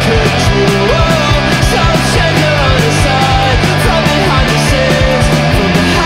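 Punk rock song playing loud: distorted electric guitars, bass and fast, busy drums, with a voice singing the lyrics.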